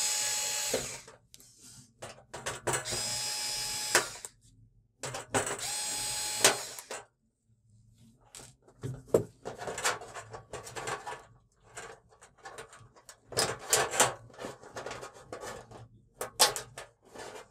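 Cordless electric screwdriver whirring in three short runs of one to two seconds on the screws of an LED TV's backlight strips. Afterwards, from about halfway in, scattered clicks and knocks of hands handling the thin metal back panel.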